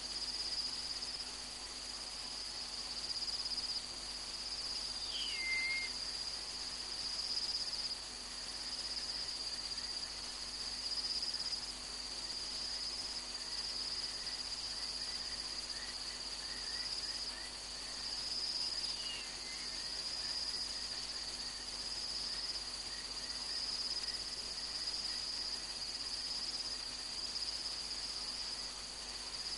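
Night chorus of crickets: a steady, high, slightly pulsing trill. It is twice broken by a short call from another animal that slides downward, and a faint run of quick chirps sounds midway.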